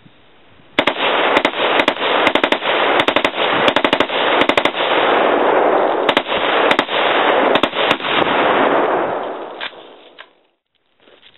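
Ruger AC556 .223 rifle with a muzzle brake firing repeatedly, single shots and quick bursts, for about nine seconds before stopping near the end. The muzzle blast is loud, with a dense wash of sound between the shots.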